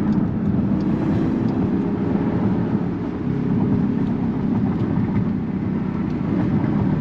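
2019 Jeep Grand Cherokee SRT's 6.4-litre HEMI V8 heard from inside the cabin while cruising, with its exhaust valve mufflers closed. It gives a low, steady drone mixed with road noise, and the engine note shifts a little about three seconds in.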